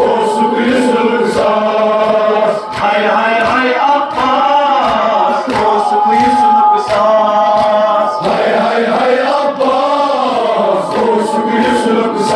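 Male voices chanting a noha, a Shia Muharram mourning lament, with long held and gliding notes over a steady beat about twice a second.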